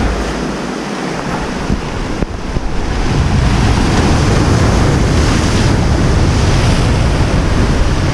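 Sea surf washing and breaking against a rocky shore, with wind buffeting the microphone in a low rumble. It grows louder about three seconds in.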